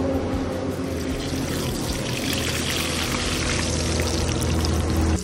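Batata vadas deep-frying in a large kadai of hot oil: a steady, dense bubbling sizzle.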